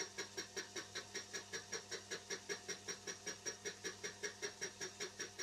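Mini mill fly cutter facing a cast-iron workpiece: the single cutting tool strikes the metal once per turn, giving an even tick about five or six times a second over the low, steady hum of the mill.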